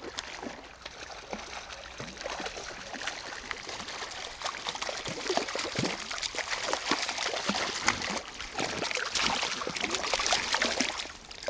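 A hooked brown trout splashing and thrashing at the surface of a shallow river while being played on the line. The splashing comes in irregular bursts that grow louder and busier in the second half.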